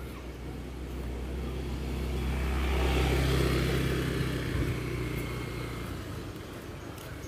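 A motor vehicle passing close by: its low engine hum swells to a peak about three seconds in, then fades away.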